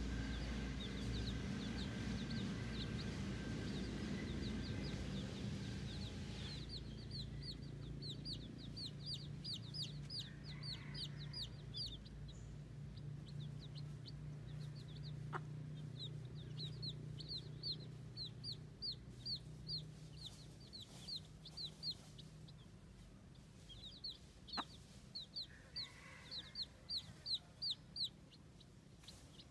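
Baby chicks peeping: runs of quick, high, falling peeps, several a second, over a low steady hum.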